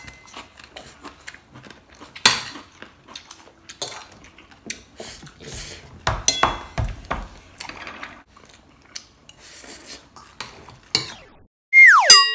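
Spoons and cutlery clinking and scraping against plates and bowls during a meal, in a string of light knocks. Near the end, a loud whistle-like tone slides steeply down into a ringing, bell-like ding.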